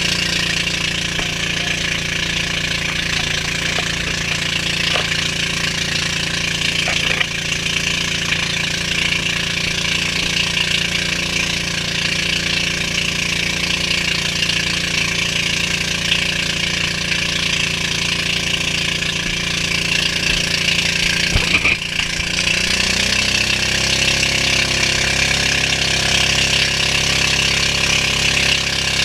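Engine of a motorized outrigger boat (bangka) running steadily under way, with a loud hiss of water rushing past the hull. About three quarters of the way through, the engine note dips briefly and settles at a changed pitch.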